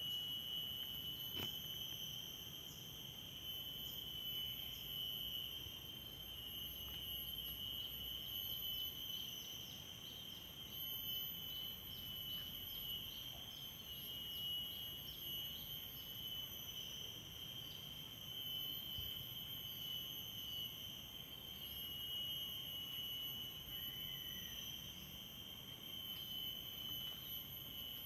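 Steady, high-pitched droning of insects, with a rapid ticking chirp joining in for a stretch in the middle.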